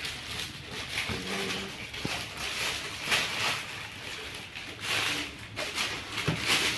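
Thin plastic wrapping rustling and crinkling in repeated bursts as a stack of dinner plates is handled and unwrapped, with a short knock near the end.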